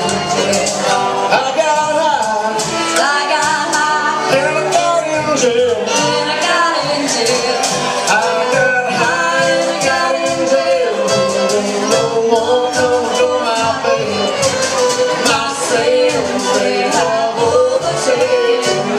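Jug band playing live: an upbeat old-time tune with fiddle and strummed guitar carrying a wavering melody over a quick, even strumming rhythm.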